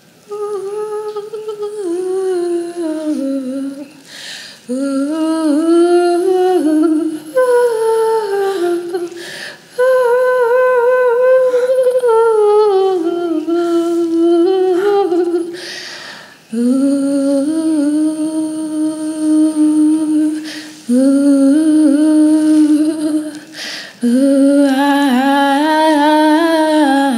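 A woman's voice singing a slow, wordless melody in long phrases broken by short pauses, with a wavering vibrato in the last phrase.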